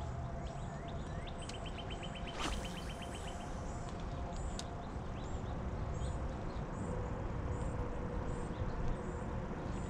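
Birds calling outdoors: repeated high, short double chirps, with a rapid trill early on. A single sharp click comes about two and a half seconds in, over a steady low rumble.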